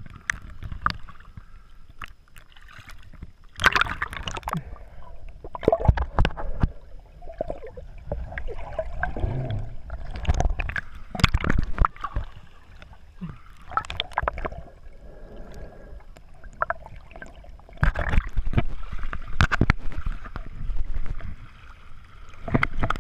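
Lake water sloshing and gurgling around a camera held at the surface as it dips under and comes back up, with irregular splashes throughout.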